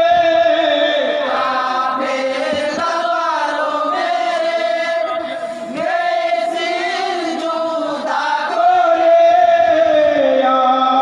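A group of men chanting and singing a Bengali jari gaan, a Muharram lament song, together in long held notes.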